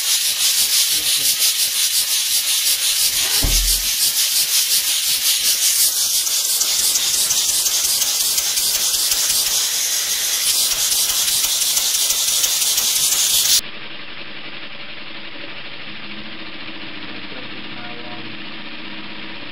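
Small wobbler (oscillating-cylinder) engine running fast: a loud hiss made of very rapid, even exhaust pulses. About two-thirds of the way through it cuts abruptly to a quieter, steady machine hum with a low tone.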